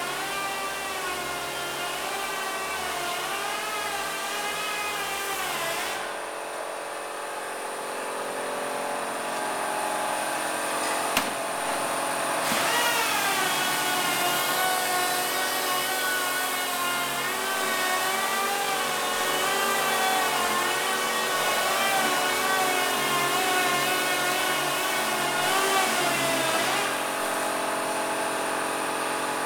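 A motor running with a whine whose pitch wanders up and down every second or two, fainter for a few seconds in the middle, with a single click about eleven seconds in.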